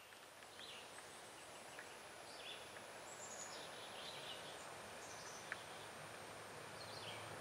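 Faint outdoor ambience with small birds chirping now and then, and a single sharp click about five and a half seconds in.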